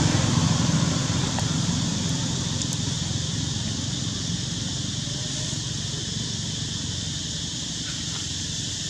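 Steady outdoor background noise: a low rumble under a high hiss, getting slowly quieter, with no clear call from the monkeys.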